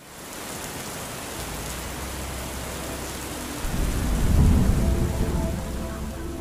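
Steady heavy rain, fading in, with a deep roll of thunder that builds about four seconds in and then dies away.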